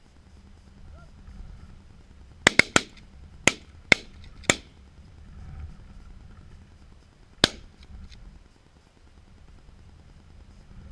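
A volley of shotgun fire from several hunters. Three shots come close together, three more follow over the next two seconds, and a single last shot comes a few seconds later.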